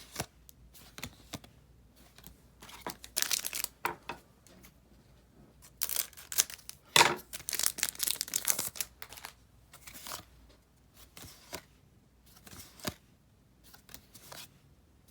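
Foil trading-card booster pack wrapper being torn open and crinkled in several short bursts, the longest about halfway through.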